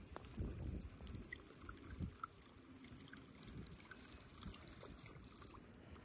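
Faint water lapping against the hull of an inflatable kayak as it drifts, in soft irregular pulses.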